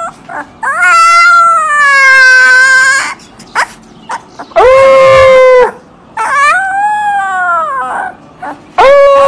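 Husky puppy howling: about four drawn-out, pitched howls with short breaths between, the first the longest, each swelling up and then sliding down at the end.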